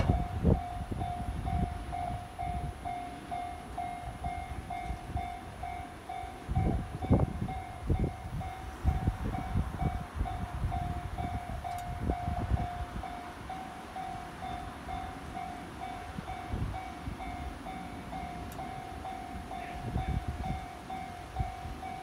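Japanese railway level-crossing warning bell ringing, its electronic clang repeating in a steady, even rhythm, with irregular low rumbling underneath.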